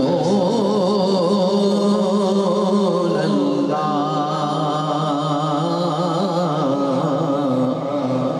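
A man's solo devotional chanting into a microphone: one voice in long held notes with wavering, ornamented pitch.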